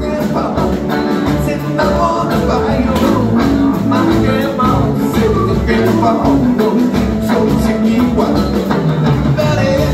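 Live rock band with electric guitars, bass, drums and keyboard playing a steady groove, heard loud in the hall.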